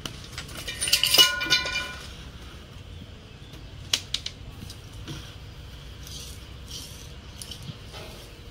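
Light clinking and rattling of hard objects with a brief metallic ring, about a second in, then a few sharp clicks about four seconds in and faint scattered taps.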